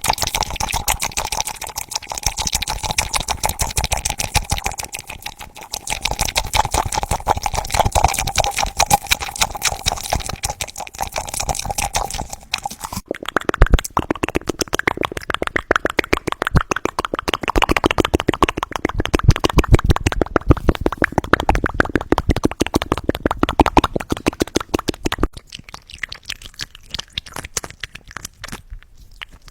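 ASMR mouth sounds close to the microphone: rapid wet clicks and pops of tongue and lips. The pattern changes to a different run of clicks a little under halfway through and thins out near the end.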